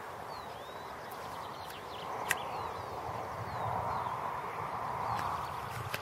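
A flock of sheep running across grass, the patter of many hooves growing louder as the flock comes near, with one sharp click about two seconds in.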